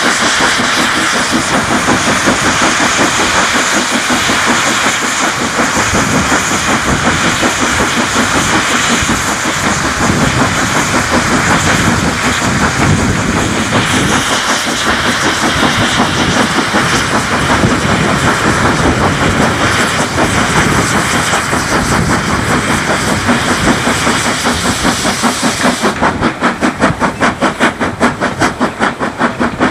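Steam locomotive working hard on the steep climb from Grosmont to Goathland: a fast thrash of exhaust beats over a steady hiss of steam, heard from a carriage window close behind the engine. About 26 seconds in, the hiss thins and the beats stand out sharply, about four a second.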